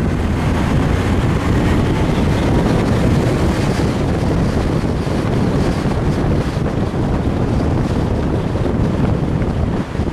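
Porsche 944S on the move, its engine and road noise buried under heavy wind buffeting on the microphone. The noise stays steady throughout, with no revving or gear changes standing out.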